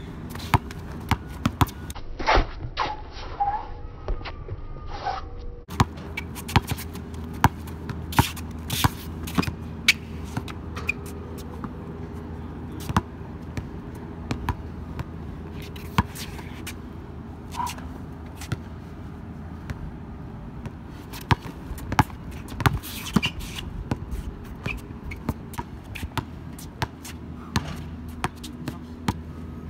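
A basketball bouncing on an outdoor hard court as a player dribbles: repeated sharp bounces at an uneven pace, mixed with scuffs of shoes on the court surface.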